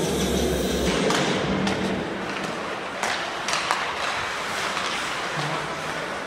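Ice hockey in play: skates scraping the ice with sharp clacks and knocks of sticks and puck. A steady hum underneath cuts off about a second in.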